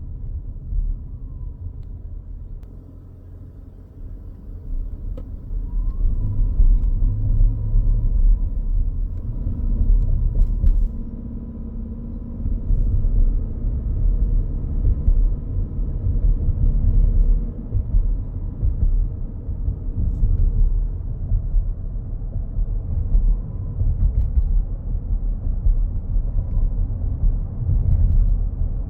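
Low road-and-drivetrain rumble inside the cabin of a 2025 Toyota Grand Highlander Hybrid being driven with the windows closed. Over it sits a faint, thin, steady high-pitched whine that rises in pitch briefly a couple of times, the electrical noise the owner reports as most prevalent under acceleration.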